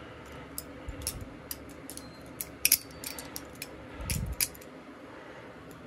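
Metal pocket knives being handled: a scatter of light metallic clicks and clinks, with two soft thumps about a second in and about four seconds in.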